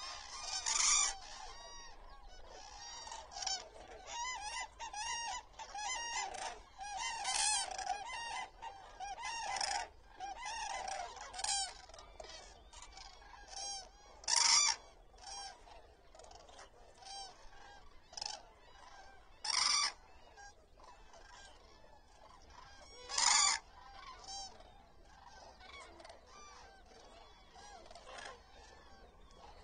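A large flock of common cranes calling, with many calls overlapping throughout. A few louder calls stand out, one about a second in and three more in the second half.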